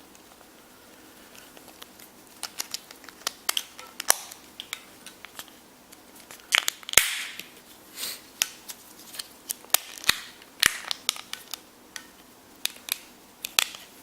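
Irregular small plastic clicks and snaps with brief rustling, from handling an Oakley Holbrook sunglasses frame as its lenses are popped out and replacement lenses popped in.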